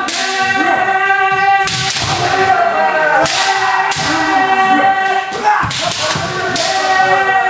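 Bamboo shinai strikes, several sharp cracks, among long drawn-out kiai shouts from several kendo fencers sparring at once.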